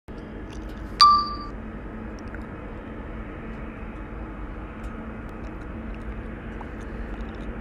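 A single bright metallic ding about a second in, ringing briefly at two clear pitches, over a steady background hiss with a faint low hum.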